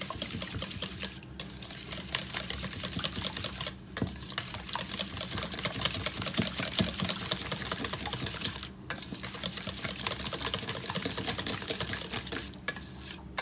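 Wire whisk beating a runny egg and double-cream mixture in a stainless steel bowl: rapid, even clicking and rattling of the wires against the metal, with a few brief pauses.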